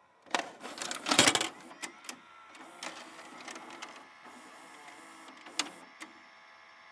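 VHS cassette pushed into a VCR's loading slot with a plastic clatter, then the VCR's loading mechanism whirring and clicking as it pulls the tape in and threads it.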